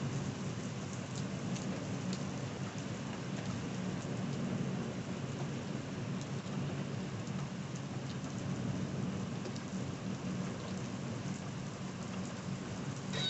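Heavy thunderstorm downpour: rain pouring steadily onto a street and pavement, an even hiss with a low continuous rumble underneath.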